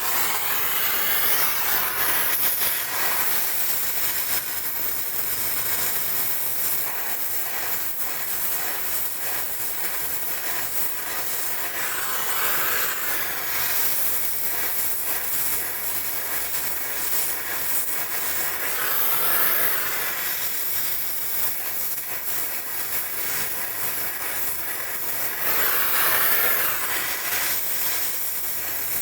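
Oxy-acetylene gas torch flame hissing steadily while a pipe joint is brazed, swelling louder four times.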